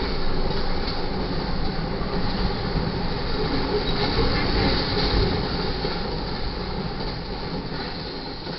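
Double-stack intermodal freight cars rolling past on the rails, a steady rumble of wheels and rail noise. It fades away over the last few seconds as the end of the train goes by.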